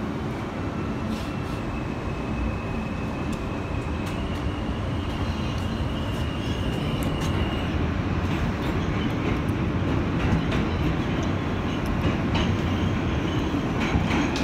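Inside a 2005 R160A subway car with Alstom propulsion, a steady rumble of wheels and running gear grows gradually louder as the train picks up speed. A faint high electric whine from the motors steps up in pitch about four seconds in.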